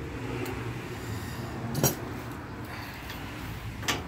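Torque wrench and socket clicking as they are handled and fitted onto a bolt: one sharp metallic click about two seconds in and two more near the end, over a steady low hum.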